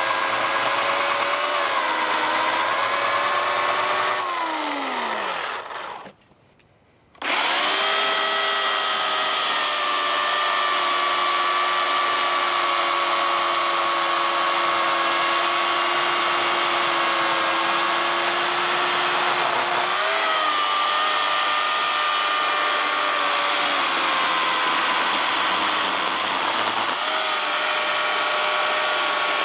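Corded Oregon CS1500 self-sharpening electric chainsaw running with a steady high whine while cutting a log. About four seconds in, its pitch falls and it winds down to a stop. After a second of near silence it starts again abruptly and runs steadily, the pitch dipping slightly now and then.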